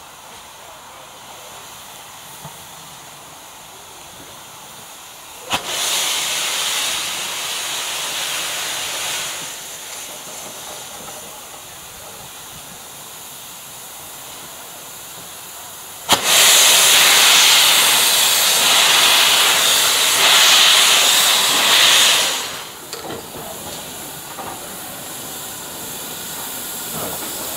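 Steam hissing from a standing GWR prairie tank steam locomotive: a steady hiss broken by two loud blasts of escaping steam that start suddenly, one about five seconds in lasting some four seconds, and a louder one about sixteen seconds in lasting about six seconds.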